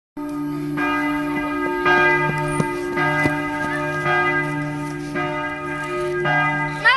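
A church bell struck at an even pace, six strokes about a second apart, each stroke ringing on beneath the next.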